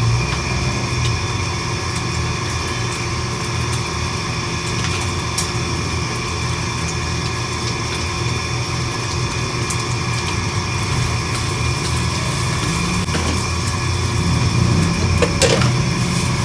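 Steady loud drone of a commercial kitchen stove and its fans, a low hum with a few light clinks of cooking utensils.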